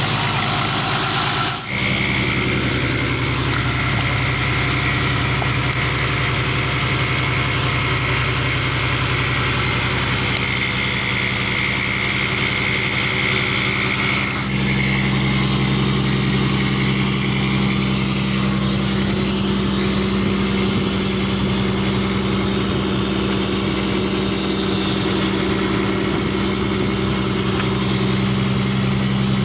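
Fishing boat's engine running steadily with a low, even hum. The tone of the hum shifts slightly twice, about two seconds in and again about halfway through.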